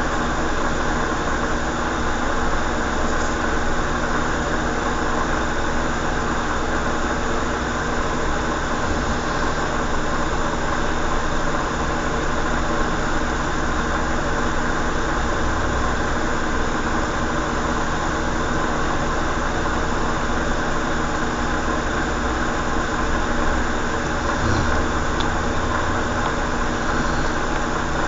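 A steady mechanical hum with a hiss over it, unchanging in level.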